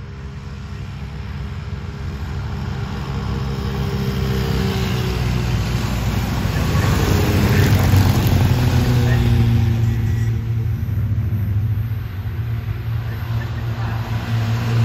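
Engines of small vintage light racing cars running at speed along the track. One car passes closest about eight seconds in, its note dropping in pitch as it goes by, and two more cars approach near the end, growing louder.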